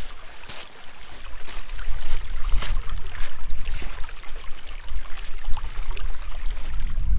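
Footsteps on a hiking trail, an irregular series of short crunches, over a steady low rumble of wind on the microphone.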